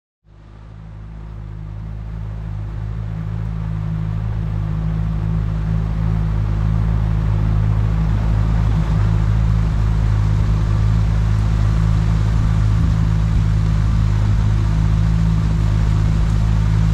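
Fishing boat's outboard motor running steadily at speed with a constant low drone, fading in over the first few seconds.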